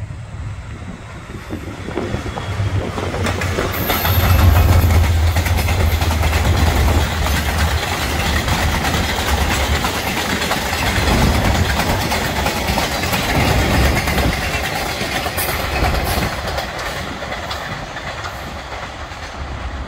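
GE B40-8W diesel locomotive passing, its engine a deep rumble that grows over the first few seconds and peaks about four seconds in. A string of ballast hopper cars follows, their steel wheels rolling and clicking over the rail joints.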